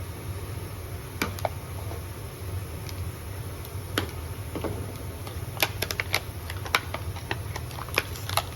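Scattered light clicks and taps from handling a router bit and router, irregular and sharpest about four seconds in and in a quick cluster near the middle, over a steady low hum.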